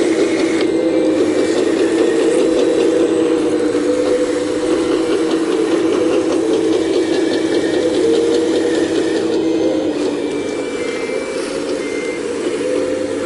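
Full-size excavator's diesel engine running steadily under load while digging, its pitch wavering slightly, with faint clicking and short high squeaks from the machine.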